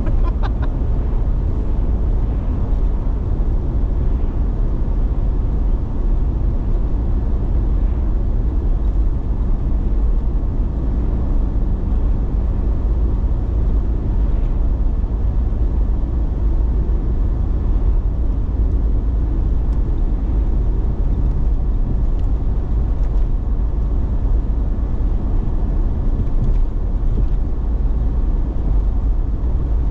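Steady road noise of a car driving along a highway, heard from inside the car: a constant low rumble of tyres and engine, with no change in speed.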